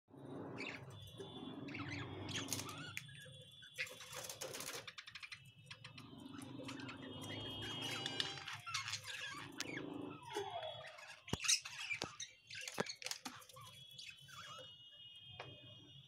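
A flock of budgerigars chattering, with continuous chirps, squawks and warbling. Two sharp clicks come about two-thirds of the way in.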